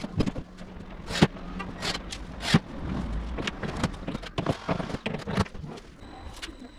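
Irregular clicks and knocks of MDF panels and hardware being handled during assembly, with two sharper knocks about one and two and a half seconds in.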